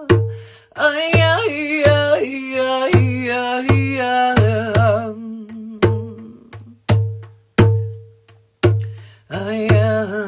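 A woman chanting in long, wavering sung tones over a steady beat on a mini djembe. The voice drops out about halfway, leaving the hand drum beating on its own, and comes back in near the end.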